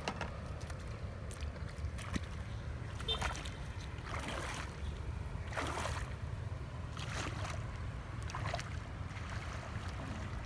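A person wading into a river, legs splashing and sloshing through the water about five times, roughly every second and a half, as the water gets deeper. A steady low rumble of wind on the microphone runs underneath.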